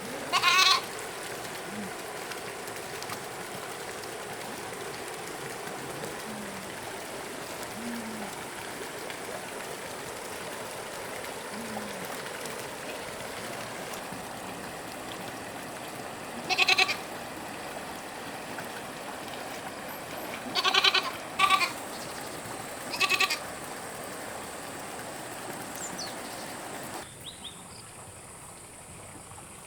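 Goats bleating: five short, loud calls, one near the start, one after a long gap, then a close pair and one more a couple of seconds later.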